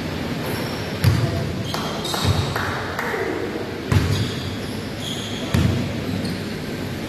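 Basketball bouncing in a game, four dull bounces spread a second or more apart, with short high-pitched squeaks in between over a steady background murmur.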